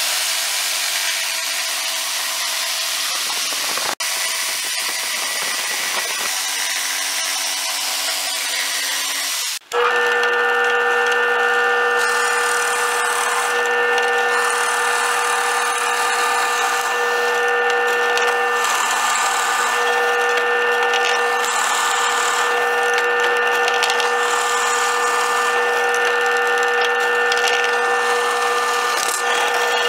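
A handheld power saw runs steadily as it cuts through a pine board; about ten seconds in it stops and a drill press takes over, its motor humming steadily while a Forstner bit bores into pine.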